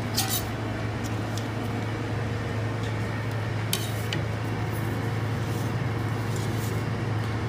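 A knife slicing a burger on a metal plate, with a few light clinks of blade and plate against the metal, over a steady low hum of kitchen equipment.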